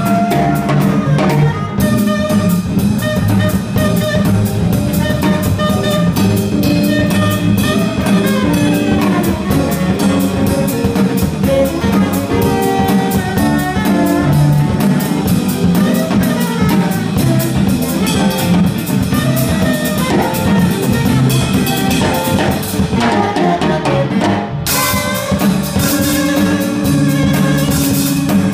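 A live jazz-funk band playing an up-tempo groove: drum kit, electric keyboard, saxophone and an electric string instrument.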